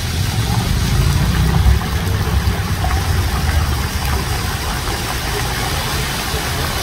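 Jets of an illuminated dancing fountain spraying and splashing onto wet paving, a steady rushing of water over a loud low rumble.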